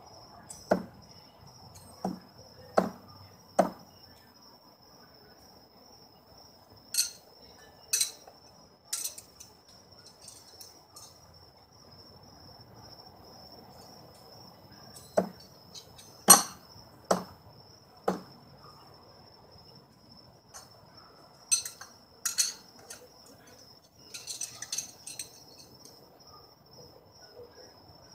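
Throwing knives thrown one after another, each hitting the target with a sharp thud, in two runs of four about a second apart; lighter clicks fall between the runs. A steady high cricket trill goes on underneath.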